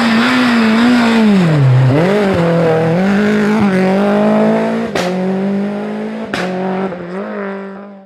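Renault Clio rally car's engine at high revs. The revs drop sharply and then pick up again and hold, with two sharp bangs about a second and a half apart in the second half. The sound fades out at the end.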